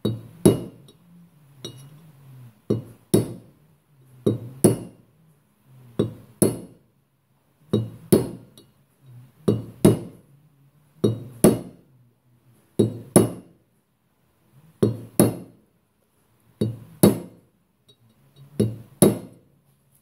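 Hammer striking a flat-ended nail punch to drive a new bearing race into a Massey Ferguson 35 front wheel hub: sharp, ringing metallic taps in pairs, a pair every one and a half to two seconds, as the punch is worked around the edge of the race to seat it evenly.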